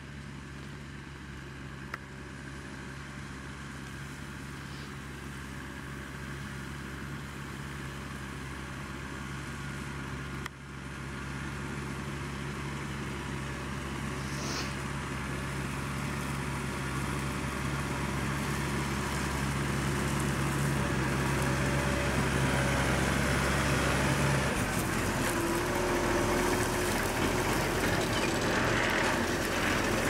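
New Holland T7 270 tractor's six-cylinder diesel engine working steadily under load as it pulls a reversible plough, growing louder as it approaches. Near the end the engine's low note shifts as the tractor comes close.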